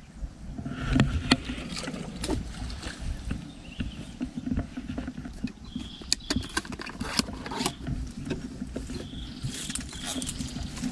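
Close-up handling noise: rustling and scattered clicks and knocks as fishing gear, a plastic case and a phone mount are handled near the microphone, over a steady low rumble.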